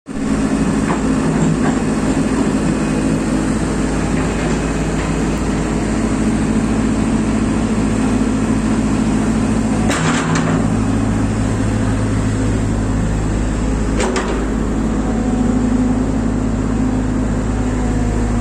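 JCB excavator's diesel engine running steadily as the hydraulic arm works the bucket through wet soil. There are two sharp metallic knocks, about ten seconds in and four seconds later, and the engine note shifts at the first knock.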